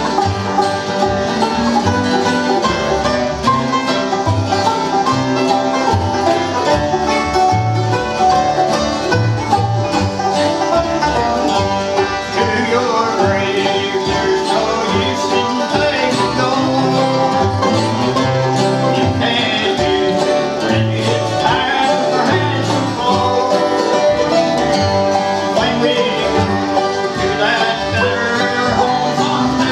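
Live bluegrass band playing, with a banjo picking over strummed acoustic guitars.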